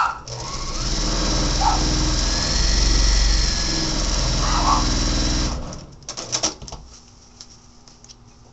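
Electric sewing machine stitching a seam through fabric and the paper foundation, running steadily for about five seconds and then stopping. A few short clicks and rustles follow.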